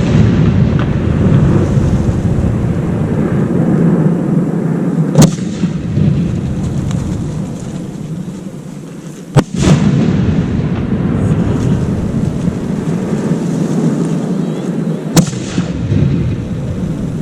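Aerial fireworks shells bursting: a sharp bang about five seconds in, another at nine and a half seconds and a third near fifteen seconds, each followed by a long rolling rumble that carries on between the bangs.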